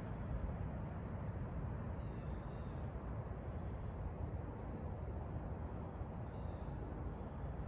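Steady low rumble of distant road traffic, with a faint high bird chirp about a second and a half in.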